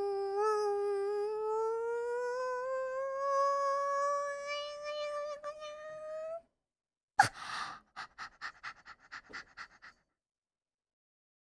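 A woman's voice humming one long high note with her mouth closed, its pitch slowly rising over about six seconds. After a short gap comes a sharp breath followed by a quick string of short breathy sounds, about eight a second.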